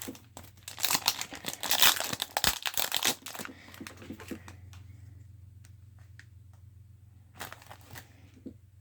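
Plastic card wrapping crinkling and rustling as it is handled for about three and a half seconds, then a few scattered light clicks and taps.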